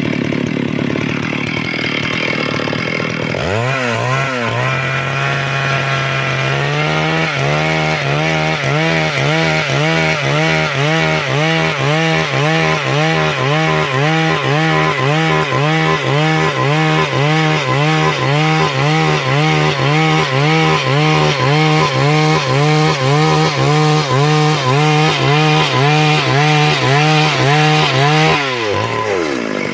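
Stihl MS 382 two-stroke chainsaw cutting wood at high revs, its note pulsing about one and a half times a second as it saws through the board. The engine note rises in the first few seconds and drops away near the end.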